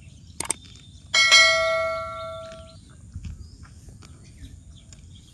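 Subscribe-button sound effect: a quick double mouse click, then a single bell ding that rings out and fades over about a second and a half.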